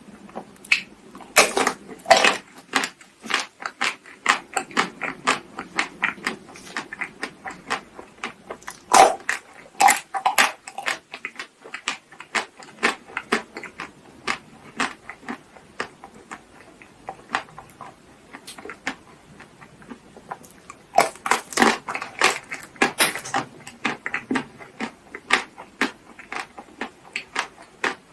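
Close-miked eating sounds: a steady run of chewing and wet mouth clicks, with louder crackly bites about a second in, about nine seconds in and about three quarters of the way through.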